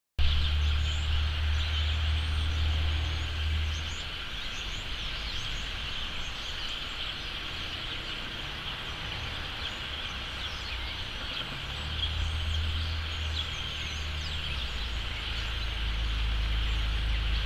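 Large flock of American robins calling all at once: a steady din of many overlapping short chirps and squeaks. A low rumble comes and goes under it, in the first few seconds, about twelve seconds in, and from about fifteen seconds on.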